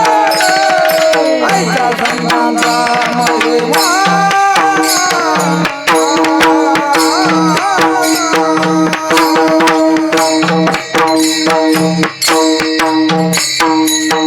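Varkari abhang accompaniment: held drone-like chords under a hand drum playing a fast, regular beat, with sharp metallic strokes on the beat. A sung phrase glides and fades in the first couple of seconds.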